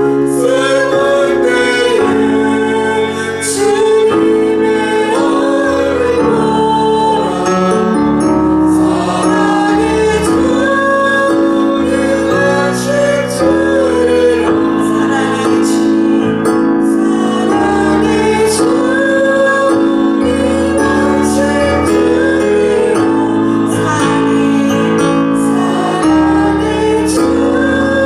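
Contemporary Korean praise-and-worship song: voices singing a melody over a band or keyboard accompaniment of sustained chords.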